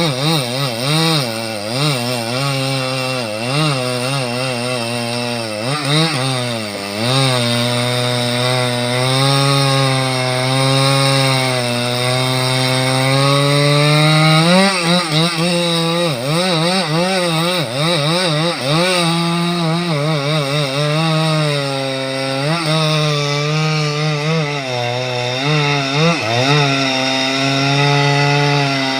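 An engine running continuously, its pitch wavering and dipping and recovering again and again as the load on it changes.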